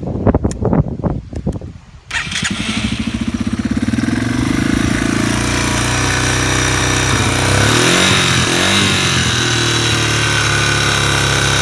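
2001 Yamaha TT-R225's air-cooled single-cylinder four-stroke engine started after a few knocks, catching about two seconds in and then idling steadily, with one brief rev near the middle. The owner hears a light ticking from the top end of this engine.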